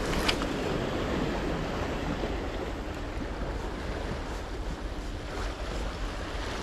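Small waves washing and breaking against the boulders of a rock jetty, with wind buffeting the microphone; a brief sharp click about a quarter second in.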